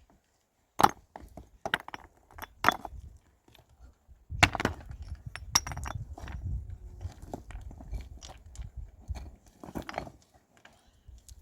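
A series of sharp knocks and clatters: three separate hits in the first few seconds, then from about four seconds in a busier run of knocks with low rumbling and scraping between them.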